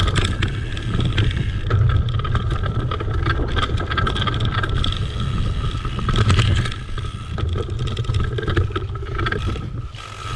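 Mountain bike ridden along a rough, muddy dirt trail: steady wind buffeting on the camera microphone with tyre noise and the bike rattling and clicking over bumps. It eases off briefly near the end.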